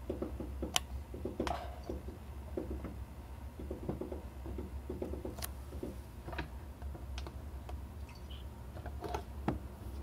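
Scattered light clicks and taps at irregular intervals, a few sharper ones standing out, over a low steady hum.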